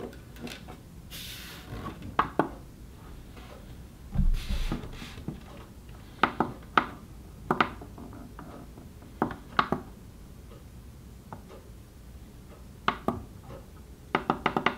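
Plastic push-buttons on a Philips Wake-up Light HF3500/01 being pressed to set the clock: sharp clicks, single or in pairs every couple of seconds, with a quick run of clicks near the end. About four seconds in there is a rustle and a low thump of the lamp being handled.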